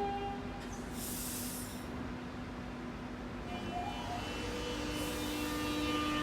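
Electric suburban train approaching, a whine of several steady tones setting in a few seconds in and the sound growing louder toward the end.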